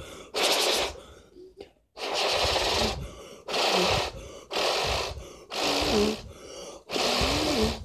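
Repeated hard puffs of breath blown onto a fidget spinner to drive it round, about six blows, each roughly half a second long, with short pauses between.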